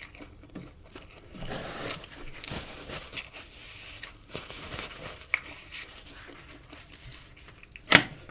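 Close-miked eating: chewing and mouth sounds through a mouthful of food, with small clicks and rustles, and one sharp click about eight seconds in.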